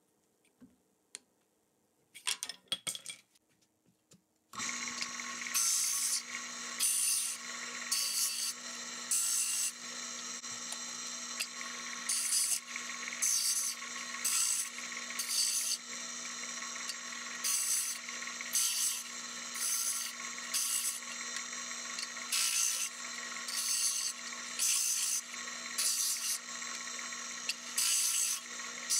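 A few light wooden clicks, then about four seconds in a disc sander starts suddenly and runs with a steady hum. A small wooden puzzle piece is pressed against the spinning disc again and again, giving a rasping sanding sound about once a second.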